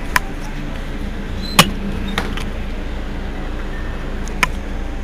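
Mercedes-Benz Citaro city bus's diesel engine idling at standstill, a steady low rumble, with a few sharp clicks over it, the loudest about a second and a half in.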